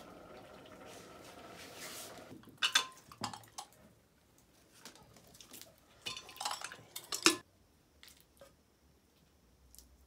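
Stainless-steel bowls and a steel pot clinking and scraping as raw honeycomb is handled and squeezed by hand, in two short spells of clatter about three and six seconds in. A steady hum fills the first two seconds.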